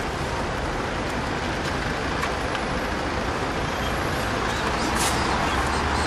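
Steady road traffic passing close by, a low rumble growing somewhat louder near the end.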